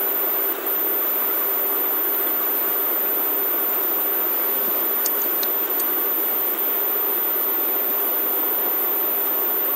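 Steady background hiss with a faint low hum, as from the recording microphone and the room between sentences. A few faint ticks come about five seconds in.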